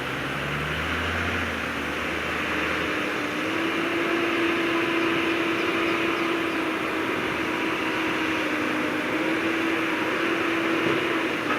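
Heavy diesel earthmoving machinery running steadily, with a steady whining note that rises a little about three seconds in, as a deeper rumble drops away.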